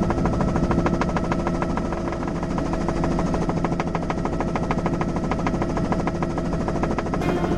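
Helicopter main rotor and turbine heard from inside the cabin: a rapid, steady chop of the blades over a constant mechanical hum.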